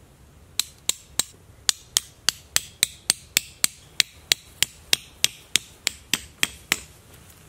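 A tent stake being hammered into the ground: about twenty sharp, even strikes, roughly three a second, starting about half a second in and stopping near the end.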